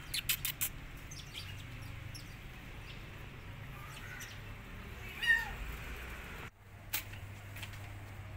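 A kitten meows once, about five seconds in: a short call that rises and falls. A few quick clicks come near the start.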